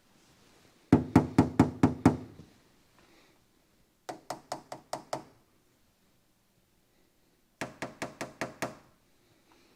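Quick knuckle-style tapping on the rear quarter panel of a 1952 Chevy Styleline Deluxe by the tail light, in three short runs of about six knocks each. The tapping is done to check by ear for body filler (Bondo) under the paint, a sign of an earlier accident repair.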